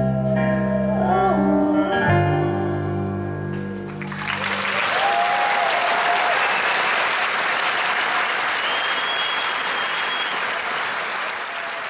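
A live band's closing sustained keyboard chords ring out, changing chord once, and stop about four seconds in. The audience then breaks into applause and cheers, with a shrill whistle partway through.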